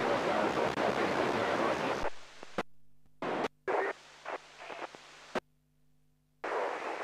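FM radio receiver hiss on the ISS satellite downlink: steady noise for about two seconds that cuts off abruptly, then several short bursts of hiss as the squelch opens and closes, with a faint hum between them, and the hiss coming back near the end.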